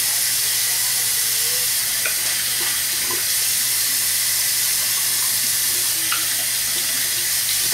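Bathroom sink tap running in a steady stream while shaving lather is rinsed off the face. The water cuts off suddenly at the end as the tap is shut.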